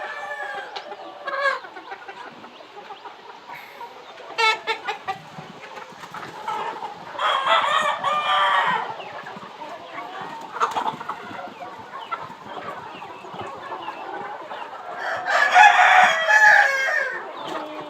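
Aseel chickens: roosters crowing, two long crows of about two seconds each, one near the middle and one near the end, with shorter clucking calls between.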